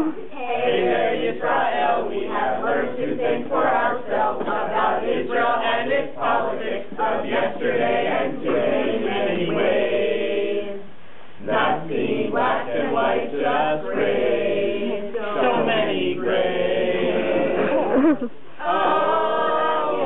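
A group of voices singing together in unison, with some notes held out.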